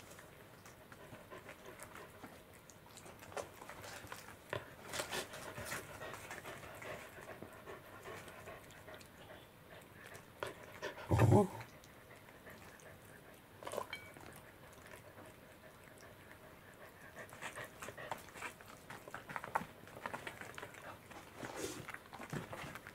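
A domestic cat chewing and licking pieces of yellowtail (buri) fish from a plate, with irregular wet mouth clicks and smacks. About eleven seconds in there is a short, louder low sound.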